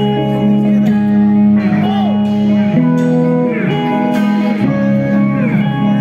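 A rock band playing live: electric guitars holding notes over a steady bass line, with the lead guitar bending notes up and back down several times.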